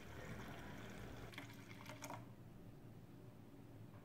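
Thick fresh carrot juice poured into a glass, a faint liquid pouring and filling sound that stops about two seconds in.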